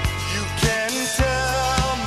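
Background music: a song with a steady drum beat, hits about every 0.6 seconds, under a gliding melody.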